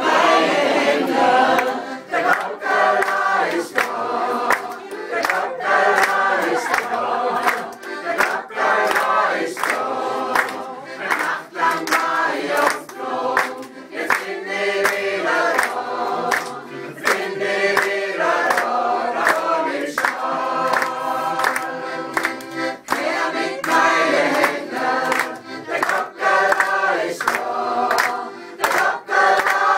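A group singing in chorus without words: a steady run of short, rhythmic sung syllables.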